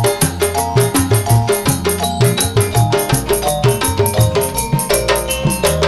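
Instrumental gamelan accompaniment between sung verses: fast, even percussion strokes under a short melody of stepping notes, with no singing.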